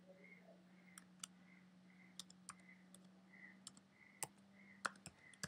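Faint, irregular keystrokes on a computer keyboard as a word is typed, over a low steady hum.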